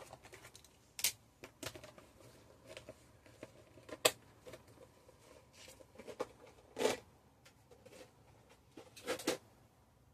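Hands handling small craft supplies: scattered light clicks and brief rustles, the sharpest about one, four and nine seconds in, with a longer rustle near seven seconds.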